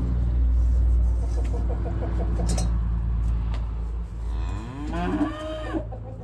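Cow mooing, with a longer call that bends in pitch about four seconds in, over a steady low rumble.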